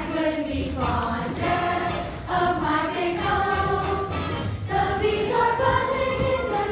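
Children's cast singing together in chorus over musical accompaniment, with held sung notes that shift every half-second or so over a low repeating bass beat.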